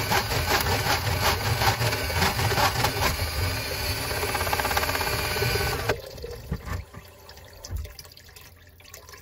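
A powered drain snake spins a quarter-inch cable inside a kitchen sink drain line, a steady motor whir with rattling, then cuts off about six seconds in. After that, water pours from the open drain pipe into a bucket. The cable has been fed out its full 25 feet without clearing the blockage.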